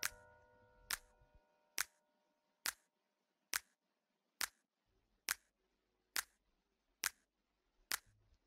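Sharp, evenly spaced ticks, about one every 0.9 seconds, in a quiet break of the background music, with a held chord fading away in the first second or so.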